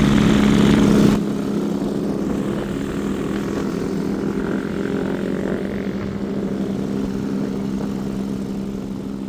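A motor engine running steadily, a low drone, with an abrupt drop in the higher sound about a second in.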